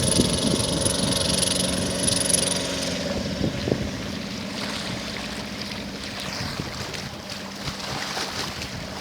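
Fast wooden motorboat's 28 hp Lombardini engine running steadily under way, with water noise and wind on the microphone. A high whine drops out about three seconds in, and the engine grows fainter.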